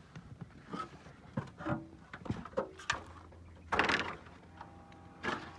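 Hands working the new rubber slide-out wiper seal against the RV's slide-out: scattered clicks, taps and short squeaks, with a louder rasping scrape just before four seconds in.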